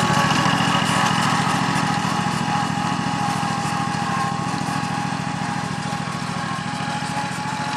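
Riding lawn mower's small engine running steadily, with a steady high whine over the engine note, easing off slightly in level.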